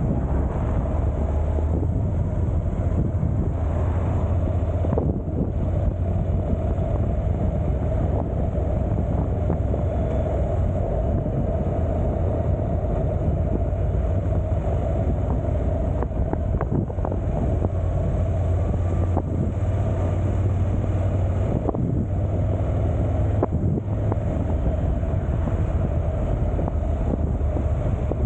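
Motorcycle riding at speed: wind rushing over the camera microphone on top of a steady low engine and road drone, with a few sharp ticks scattered through.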